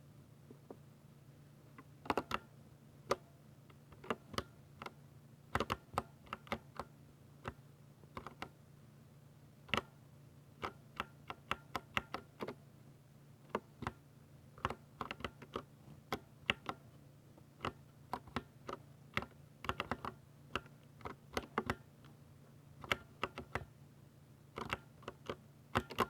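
Typing on a Ducky 60% mechanical keyboard with linear silver switches: sharp key clicks in irregular bursts of a few strokes, with short pauses between. A faint steady low hum lies underneath.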